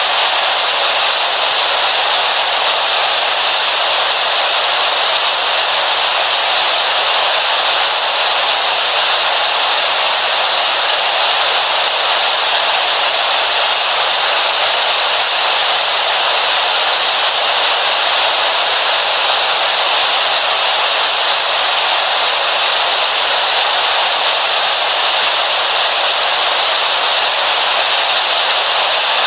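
Television static: a steady, unbroken hiss of white noise, thin in the bass and brightest in the upper mid-range.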